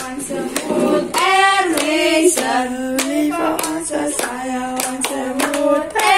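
Women and children singing a birthday song together, with hands clapping along to the beat.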